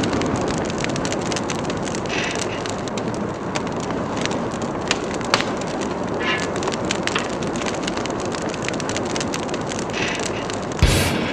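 Fire crackling: a steady rushing hiss with scattered sharp pops and crackles. Music cuts in abruptly near the end.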